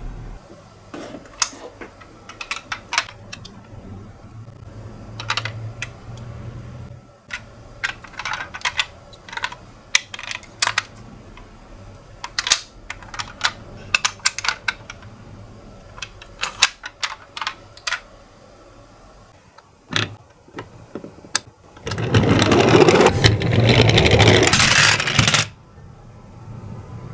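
Sharp plastic clicks and taps from a miniature toy ambulance being handled, then about three and a half seconds of louder rattling noise near the end, typical of the toy's small wheels running down a slope.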